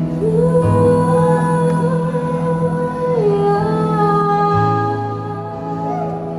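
Gospel worship music: a voice singing long held notes, stepping down in pitch about three seconds in, over a steady low sustained accompaniment.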